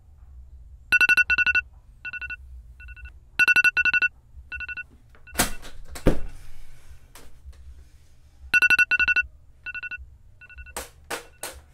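Mobile phone alarm going off: a pattern of short electronic beeps in quick pairs and singles that plays twice, the phone's wake-up alarm. A few sharp knocks and bedclothes rustling come between the two rounds and again near the end.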